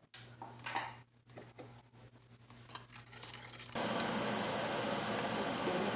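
A few faint kitchen clicks over a thin low hum, then about two-thirds of the way in a steady machine hum and hiss starts abruptly and keeps going.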